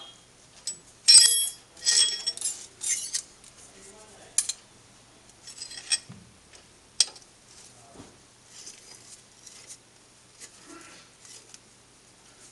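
Steel hex keys and tools clinking and clattering against the cast-iron bed of a Colchester Triumph 2000 lathe, with a cluster of loud metallic clinks about a second in and lighter scattered clinks after.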